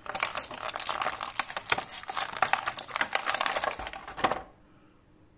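Clear plastic packaging crinkling and crackling as hands work a small figure accessory out of it. The crackling stops abruptly about four and a half seconds in.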